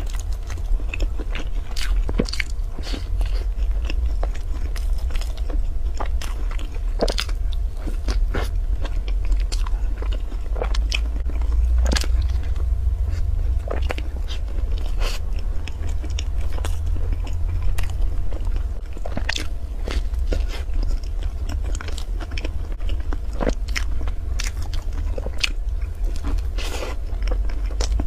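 Close-miked eating of a crumb-coated, cream-filled bread: bites and chewing with irregular crisp crackles and crunches from the crusty coating, over a steady low hum.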